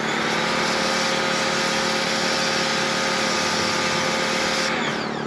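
Portable pressure washer running with its foam lance spraying: a steady motor-and-pump whine over the hiss of the jet, which winds down with a falling whine when the trigger is released near the end. The lance is nearly out of soap, so hardly any foam comes out.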